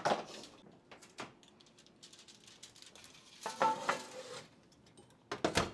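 Metal sheet pan scraping as it is slid onto an oven rack about halfway through, with a short ringing tone, then a couple of sharp clunks near the end.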